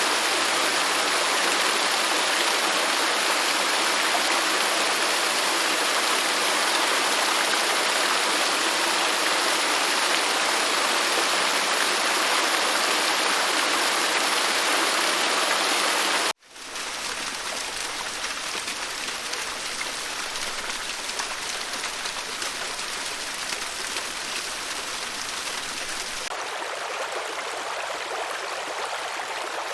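Running water: a steady, full wash of flowing water, which cuts off abruptly about sixteen seconds in and is replaced by a quieter, thinner flowing stream.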